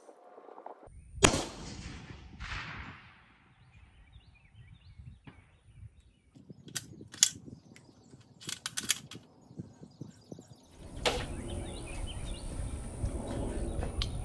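A single shot from a 28 Nosler rifle about a second in, its report rolling away for a couple of seconds. A few seconds later the bolt is worked with several sharp metallic clicks, ejecting the spent case.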